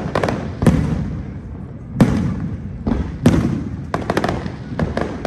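Aerial fireworks shells bursting: a string of sharp bangs, several in quick clusters, each trailing off in a low rolling rumble.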